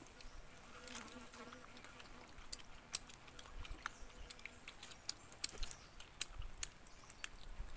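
Close-up eating of roast chicken by hand: irregular sharp smacks and clicks of chewing and tearing meat. A faint insect buzz hums for the first few seconds.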